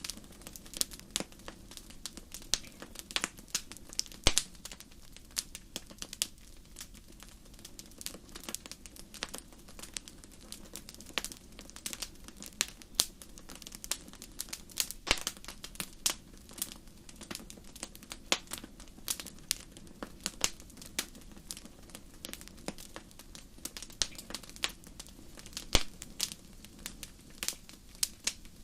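Wood fire crackling in a fireplace: irregular sharp pops and snaps, a few louder ones, over a steady low hiss of burning.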